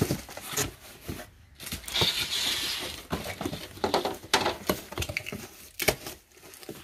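A cardboard box being pulled out of a packed pallet and opened by hand: irregular rustling, scraping and knocks of cardboard against cardboard and plastic wrap, with a longer rustle about two seconds in and the box's flap being pulled open near the end.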